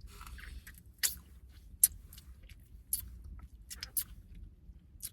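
Close-up mouth sounds of chewing takoyaki: wet smacks and sharp clicks every second or so.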